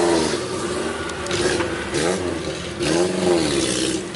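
Off-road jeep engine revving hard, its pitch rising and falling in swells two or three times as it is driven through deep mud.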